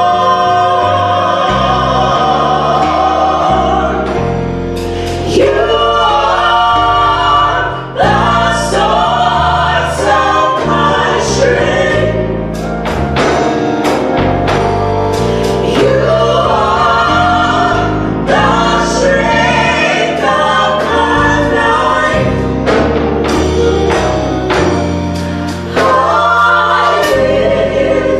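Gospel vocal group of three women and a man singing together into microphones, with instrumental backing underneath.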